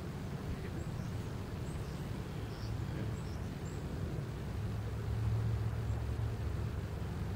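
Outdoor background: a steady low rumble that grows louder about halfway through, with a few faint, short high chirps in the first half.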